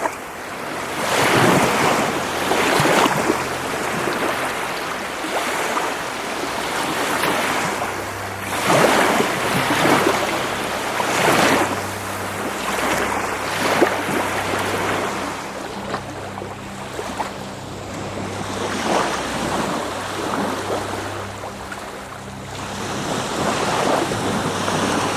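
Baltic Sea waves washing onto the shore, each wave swelling and breaking every second or few.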